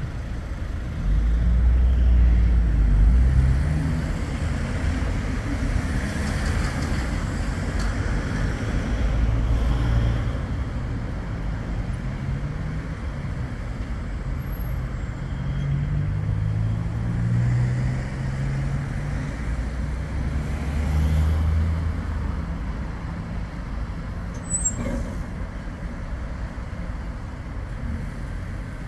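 Bombardier Flexity 2 tram running slowly on street-side track, with road traffic on the street alongside. Low pitched motor tones rise and fall through the middle, there are several heavier rumbling surges, and a single sharp click comes about three-quarters of the way through.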